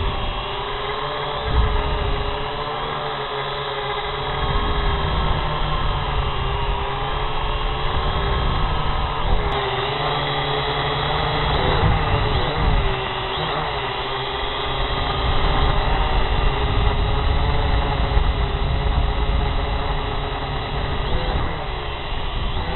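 Camera drone's electric motors and propellers whining steadily, the pitch wavering up and down as it changes speed and direction, over a low rumble.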